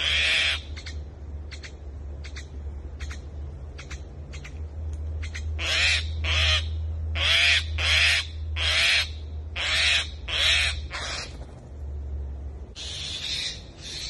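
Common mynas calling: one harsh call at the start, then a quick run of about eight loud, harsh calls from about six to eleven seconds in, and two more near the end. Faint short ticks fall between them early on.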